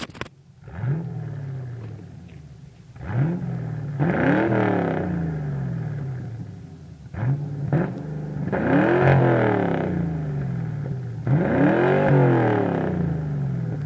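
Ford Mustang 5.0 V8 through a loud aftermarket exhaust, revved repeatedly: a few quick blips and three longer revs that climb, hold briefly and fall back to idle.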